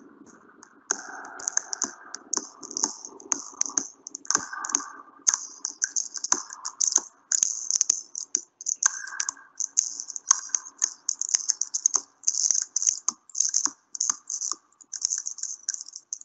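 Dense, irregular clicking and rattling in quick clusters, with a fainter low hum under it that thins out about halfway through.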